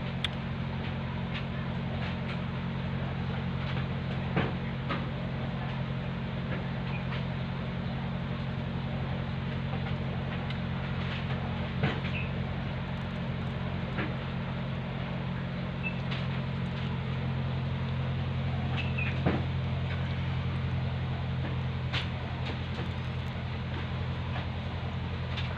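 A steady low hum from a running machine, with a few sharp light clicks scattered through.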